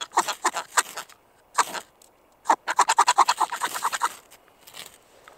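Ferrocerium rod scraped hard with a knife spine, a string of quick rasping strokes with a fast run of about a dozen in the middle, throwing sparks into a tinder bundle of wood shavings to light a fire.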